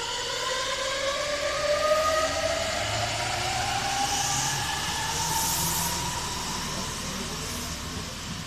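Meitetsu 3100 series electric train accelerating away from a station: its traction inverter and motors whine in several tones that rise steadily in pitch, over the rumble of wheels on rail. A brief hiss comes about five seconds in.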